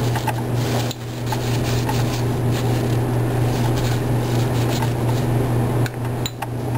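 Steady low hum throughout, with a Kimwipe tissue rubbing over a glass hemocytometer and light glassy clicks as it is handled, one near the end as it is set down on the bench.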